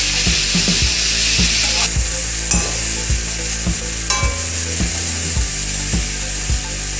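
Boiled red kidney beans frying with spices in a metal kadai, sizzling while a steel spoon stirs and scrapes them against the pan in quick, regular strokes. The sizzle is brightest for the first two seconds, then softer.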